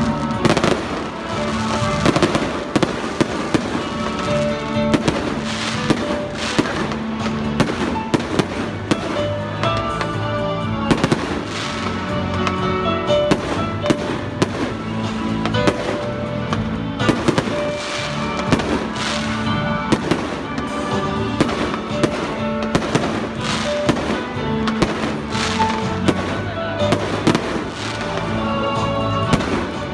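Aerial fireworks bursting in a rapid, irregular string of sharp bangs and crackles, over music with a steady melody.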